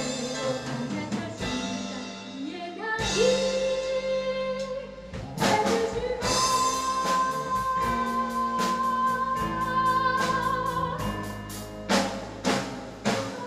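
A live band plays with a female lead singer, keyboard, bass guitar and drum kit. A long note is held through the middle, and sharp drum and cymbal hits come near the end.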